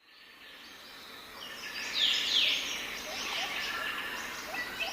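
Several birds singing and calling at once, with quick falling whistles and short rising chirps overlapping, fading in over the first couple of seconds.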